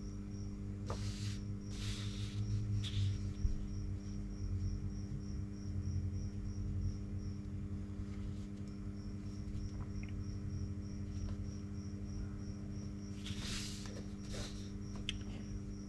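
Steady low hum with a faint high chirp repeating about three times a second, and papers rustling briefly near the start and again near the end as sheets are handled.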